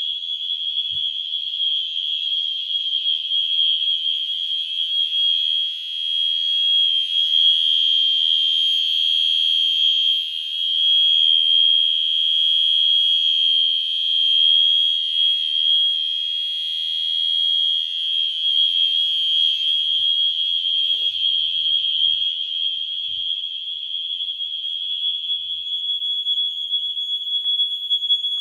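Wheelock MIZ fire-alarm mini horn set to continuous coding, sounding one steady, unbroken high-pitched tone.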